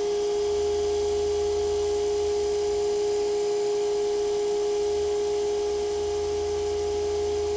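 ID (internal) grinding spindle of an Okamoto OGM-820UB cylindrical grinder running up to speed with no load: a steady whine with a couple of fainter overtones, nice and smooth.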